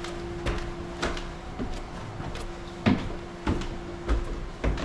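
Footsteps walking through a house: a string of irregular thuds and knocks, with a steady low hum underneath.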